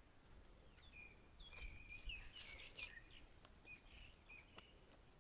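Faint outdoor ambience with a few scattered short bird chirps and whistled notes.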